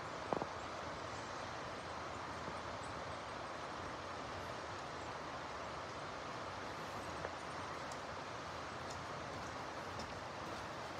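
Steady rushing of a river, with one sharp click near the start.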